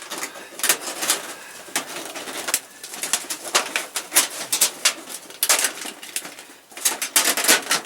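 Thin sheet-metal stovepipe and stove collar being handled: a run of irregular crinkling clicks and rattles as the collar is pushed into the pipe and swivelled, with the lacing wires scraping.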